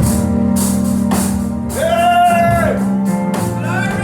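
Live gospel band music with a steady beat and sustained chords. A voice cries out a long, held "Hey!" about halfway through.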